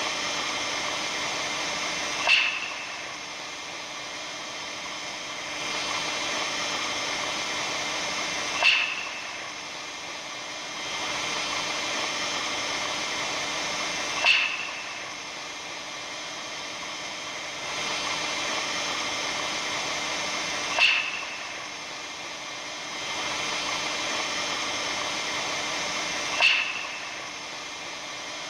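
Steady hiss with faint whistling tones, presented as the sound of the aurora borealis. It swells and falls back in a repeating cycle, with a sharp crackle about every six seconds, five in all.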